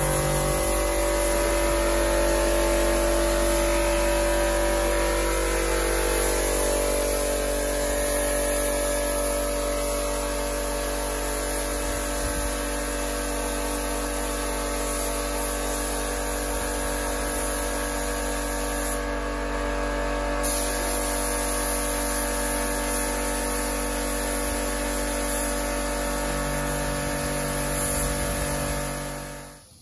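Spray-painting rig at work: a steady motor hum from the spray gun's air supply under the hiss of the gun spraying etch primer. It cuts off just before the end.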